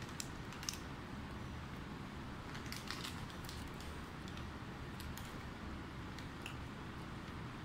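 Scattered light clicks and crinkles from paper sandwich wrappers being handled, with chewing, over a steady low hum of room ambience.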